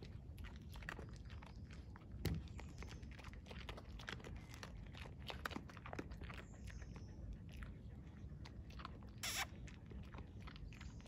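Stray dogs crunching dry kibble picked off the road, with irregular crisp crunches and chewing clicks. There is a sharper knock about two seconds in and a brief hiss-like burst near the end.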